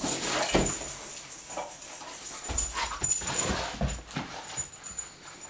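Six-month-old vizsla playing boisterously on carpet: irregular thuds and scuffles as it runs, spins and jumps, with short dog noises. Loudest in the first second and again around three to four seconds in, then dying down.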